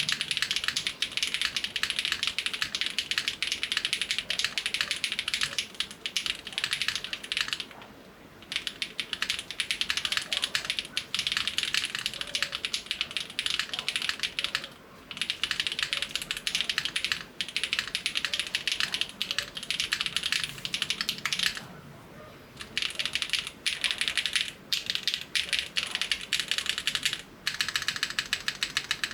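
Typing on a KBDfans Tofu60 2.0 custom 60% mechanical keyboard with Gateron CM switches: fast, high-pitched, clacky keystrokes, with three short pauses.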